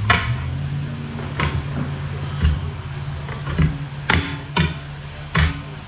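A tire bar knocking against a semi truck wheel rim as the tire bead is levered over it by hand: about six sharp knocks spaced irregularly over a few seconds.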